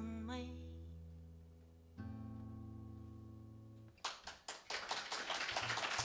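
A woman's sung closing phrase ends in the first second over acoustic guitar, which rings out; a last guitar chord sounds about two seconds in and fades. About four seconds in the audience breaks into applause.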